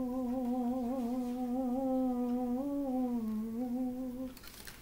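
A man humming a wordless tune, mostly on one held, slightly wavering pitch that dips a little about three seconds in, then stops shortly before the end.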